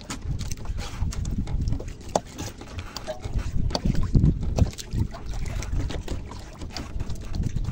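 Uneven, gusty low rumble of wind on the microphone and water moving around a small fishing boat, with scattered short clicks and knocks.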